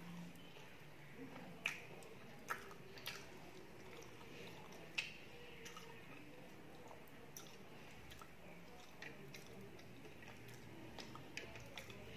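Eating rice and fish curry by hand: fingers squishing and mixing rice on a plate, and a person chewing. Scattered sharp wet clicks and smacks stand out, the loudest around two and five seconds in.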